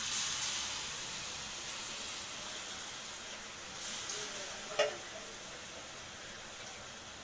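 Tomato masala frying in a metal kadai, a steady sizzling hiss that slowly dies down as the rice settles over it; a single sharp metal clink a little before five seconds in.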